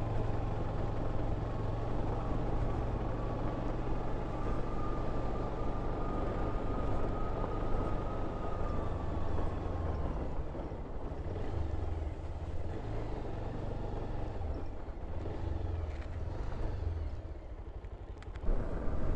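Motorcycle engine running steadily on the move, with wind and road noise over the on-board microphone. A faint whine rises slightly then fades out about halfway through, and the sound dips briefly near the end.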